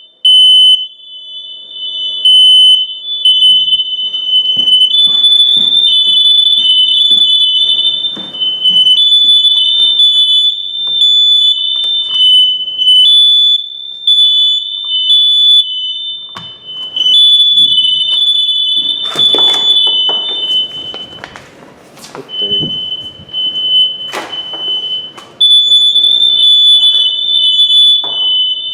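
Household smoke alarms going off during a test with aerosol tester smoke, two loud high beeping tones at slightly different pitches pulsing on and off out of step with each other. Rustling and knocks sound underneath.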